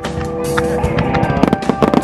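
Fireworks bursting and crackling, with many sharp bangs in quick succession over music that plays throughout.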